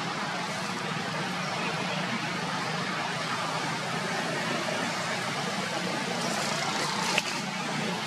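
Steady background hiss with a low hum, with one sharp click about seven seconds in.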